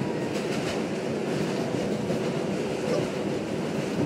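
New York City 4 train subway car in motion, heard from inside the car: a steady rumble and rattle of the car running on the rails.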